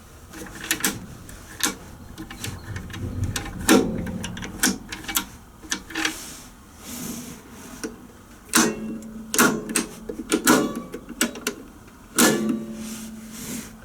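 Irregular clicks and clunks of controls being worked in an unpowered diesel locomotive cab, a few of them with a brief metallic ring.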